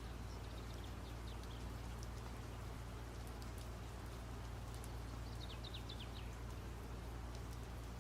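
Faint steady low hum and hiss, with a short cluster of quick high chirps, bird-like, about two-thirds of the way in.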